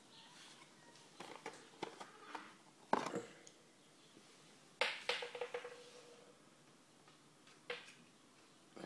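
Scattered light knocks and clicks. The loudest, about five seconds in, is followed by a short ringing tone that dies away within a second.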